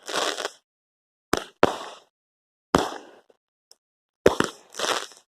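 Consumer fireworks going off: about six sharp bangs spaced irregularly, each fading within half a second.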